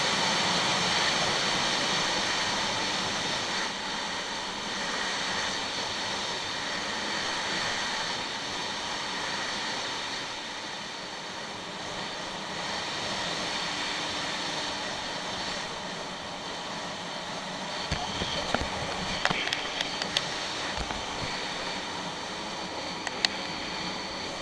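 Jet ski running on open water, a steady rush of engine, water and wind with no clear pitch, easing off slightly as it goes. Several sharp knocks sound in the last few seconds.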